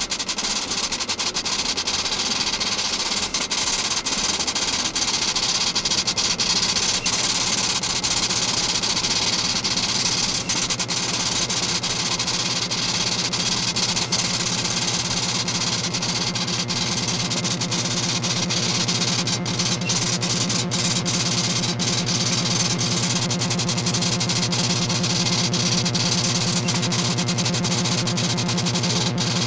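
Steady hum and hiss of a computer room's machinery: reel-to-reel tape drives and cooling fans running without letup.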